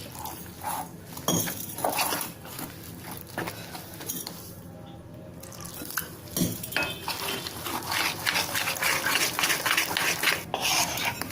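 Gram-flour batter being stirred in a bowl as water is worked in, a utensil scraping and clinking against the bowl. It goes quieter for a moment near the middle, then turns into brisker, continuous stirring.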